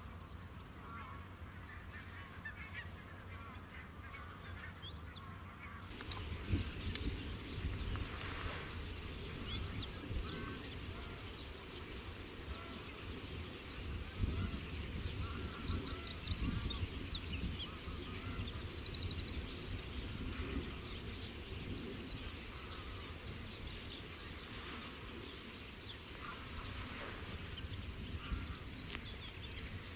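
Outdoor birdsong from several wild birds: many short high chirps, with a few short fast trills, over a steady low rumble. The birdsong grows louder about six seconds in.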